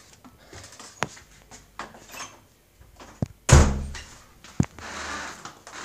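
A few sharp clicks and one heavy thump about three and a half seconds in, followed by a rustling hiss.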